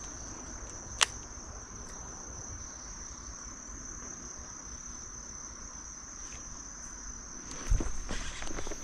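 An insect trilling steadily at one high pitch. A single sharp click about a second in, and a few low knocks near the end.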